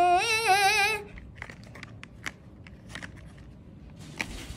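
A voice hums a held, wavering note that stops about a second in. Then a few faint clicks and rustles of fingers handling a small cardboard box.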